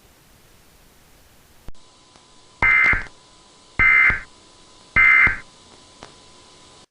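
Emergency Alert System end-of-message signal: after a click, three short bursts of digital data tones, about a second apart, mark the end of the alert.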